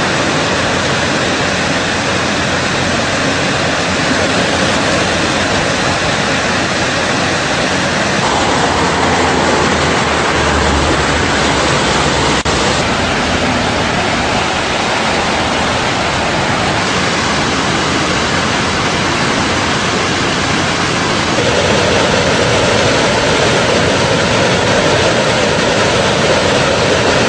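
Steady, loud rushing of flowing water, growing a little louder about three quarters of the way through.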